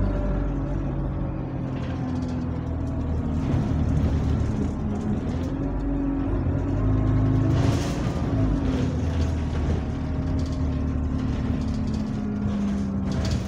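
Bus engine running under way, heard from inside the passenger saloon, its moaning note rising and falling in pitch as the bus speeds up and slows. A brief hiss about eight seconds in.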